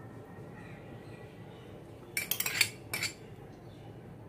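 Metal spoon clinking against glass bowls: a quick cluster of sharp clinks about two seconds in, after a quiet stretch.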